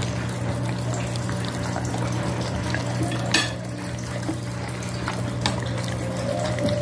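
A dog licking and chewing food off a plate, with small wet clicks and one sharp clink against the plate about three and a half seconds in. A steady low hum runs underneath.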